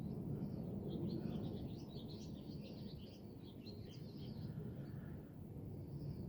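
Small birds chirping: a quick run of high twittering notes from about a second in, fading out after about three and a half seconds, over a steady low rumble of background noise.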